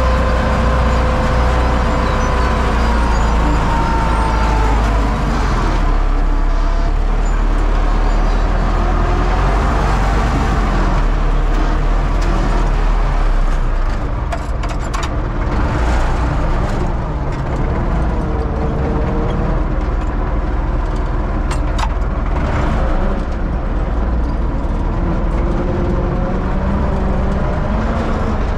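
U650 tractor's diesel engine running steadily, with a high whine that sags slightly in pitch in the first few seconds and a few short rattles near the middle.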